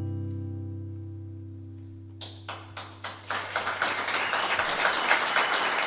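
A final strummed acoustic guitar chord rings out and slowly fades. About two seconds in, an audience starts clapping, and it builds into steady applause.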